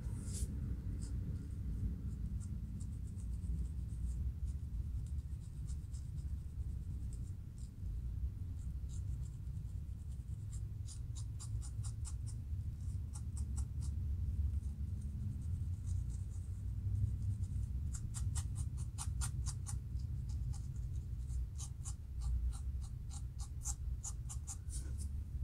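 Fingernails and a comb scratching at the scalp between locs, in runs of quick short strokes, lifting dandruff flakes from a dry scalp. A steady low rumble runs underneath.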